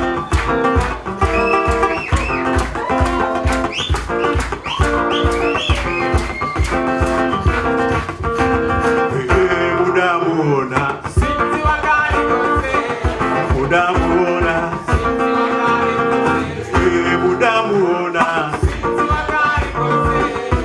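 Live band music, with a guitar carrying the melody over a steady drum beat. The drums and bass drop out briefly about halfway through and again near the end.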